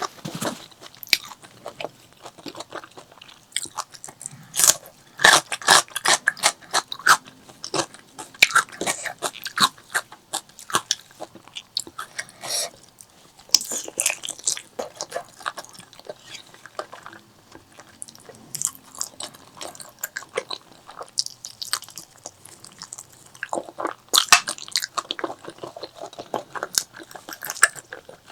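Close-miked eating: a person chewing and biting food, with many short wet clicks and crunches that come in clusters with pauses between them.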